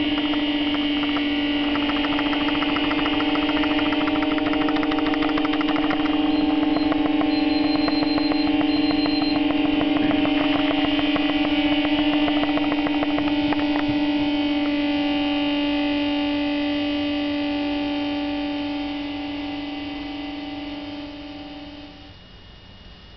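Sustained electronic drone from live experimental music: a strong low held tone layered with several steady higher tones, with a fast flickering pulse through the first half. It fades slowly, then cuts off shortly before the end.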